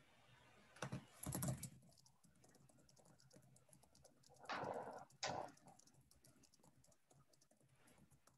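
Typing on a computer keyboard in a few short bursts of rapid key clicks, picked up faintly by the call microphone, with room tone between them.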